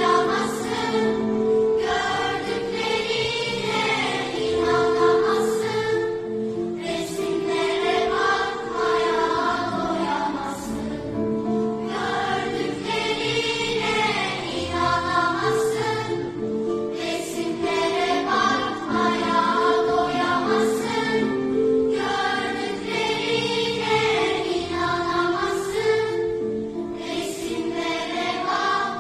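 Children's choir singing in long held phrases, accompanied by a string orchestra of violins and cellos.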